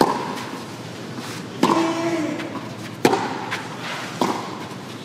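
Tennis ball struck back and forth by rackets in a baseline rally, four shots about a second and a half apart, each with a short echo from the arena. A player grunts on the second shot, over a low murmur from the crowd.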